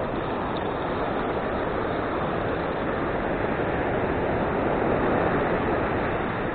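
Ocean surf washing onto a beach, a steady rushing noise that swells to its loudest about five seconds in as a wave comes in.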